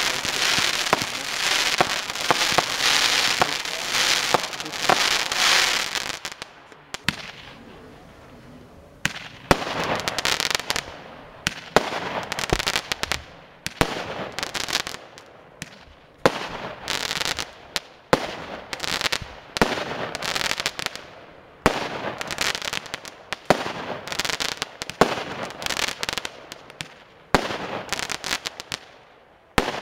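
Amey consumer firework cake batteries firing. The "Pan" battery's dense run of bursts dies away about six seconds in. After a short lull the "Rush Hour" battery starts firing shot after shot, one every second or two, each a sharp launch report followed by about a second of burst noise.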